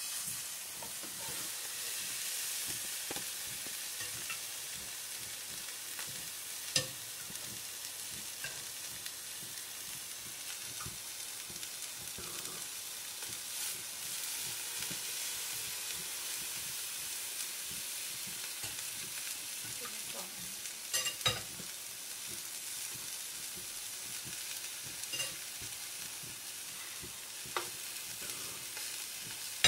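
Salmon steaks frying in a hot pan, a steady sizzle, with a few sharp clicks of a metal spatula against the pan as the pieces are moved.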